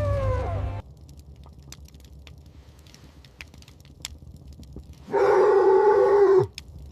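A canine howl: the tail of one long call falling in pitch fades out in the first second. About five seconds in a second howl, loud and held steady for about a second and a half, drops away at the end. Faint scattered clicks come in the quiet between them.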